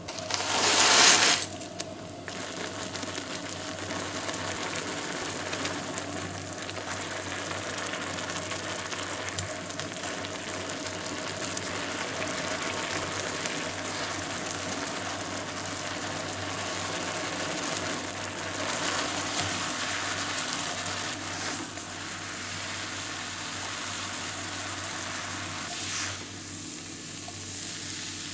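Instant yakisoba noodles cooking in a frying pan with water: a loud hiss in the first second or two, then steady sizzling and bubbling while the noodles are stirred with chopsticks.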